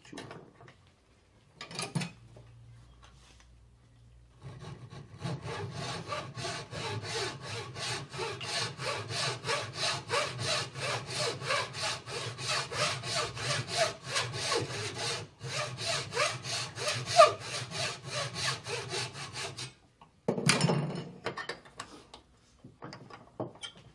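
Thin-bladed wooden frame saw cutting a small block of wood clamped in a bench vise, in rapid, even strokes of about four a second with one short break partway through. It stops about 20 seconds in, followed by a few knocks as the tools are handled.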